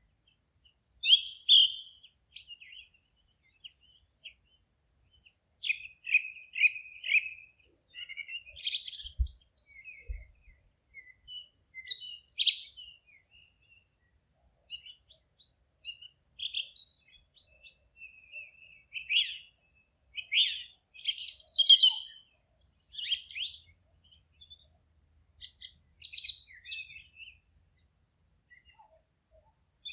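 Songbirds singing: short, high-pitched chirping phrases of several kinds, one every second or two, with brief quiet gaps between them.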